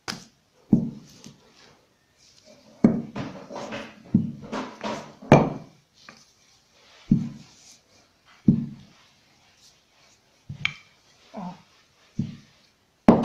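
Wooden rolling pin rolling and knocking on a table as a round of bread dough is rolled out and flipped: a series of irregular dull thumps, one every second or two.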